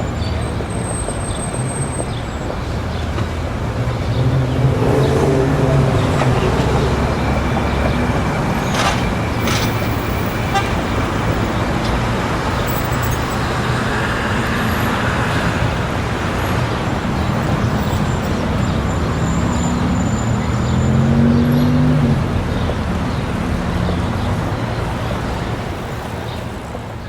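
City street traffic: a steady rumble of road traffic with engines passing close, two louder vehicle passes about five seconds in and again near twenty seconds, and a car horn tooting.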